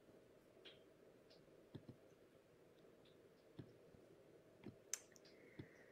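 Near silence: quiet room tone with a handful of faint, scattered clicks, the sharpest about five seconds in.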